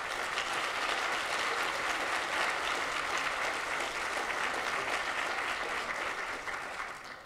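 Audience applauding, steady clapping that dies away near the end.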